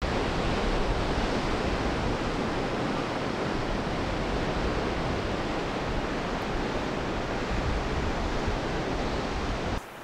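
Ocean surf washing and breaking around rocky sea stacks, a steady rush of water that cuts off suddenly near the end.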